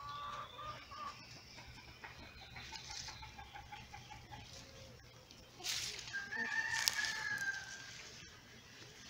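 Chickens calling: short calls early on and a rooster crowing about six seconds in, one long drawn-out call. Brief rustles of brush along the walk are heard with it.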